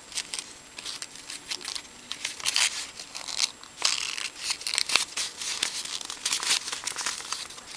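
Sheet of origami paper rustling and crinkling in irregular short crackles as fingers fold it and tuck a flap into a pocket.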